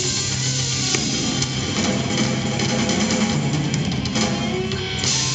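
Live rock band playing loudly on electric guitars, bass guitar and a drum kit, picked up by a small handheld camera's microphone.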